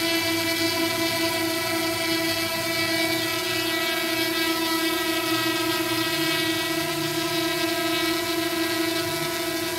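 DJI quadcopter drone's propellers and motors running at a hover, a steady buzzing whine made of several held tones that does not change in pitch.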